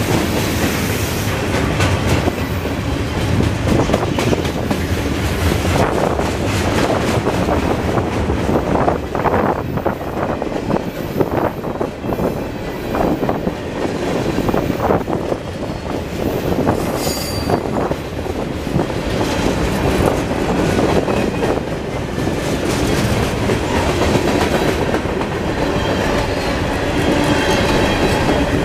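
Freight cars of a CSX manifest train rolling past close by: a steady rumble of steel wheels with rapid clicking over rail joints, and a brief high squeal a little past halfway.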